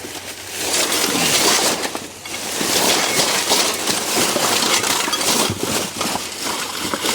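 Hands rummaging through scrap and debris: continuous rustling and scraping with scattered clicks and knocks of loose metal.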